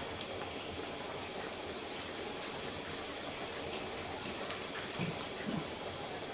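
A cricket trilling steadily in fast, even pulses, about eight a second, on a high pitch. Now and then the wood fire gives a faint crackle.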